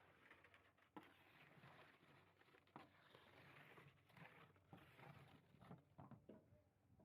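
Near silence, with faint scattered clicks and knocks.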